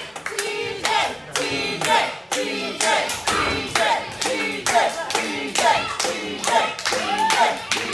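Wrestling crowd clapping in a steady rhythm, with voices chanting and shouting over the claps.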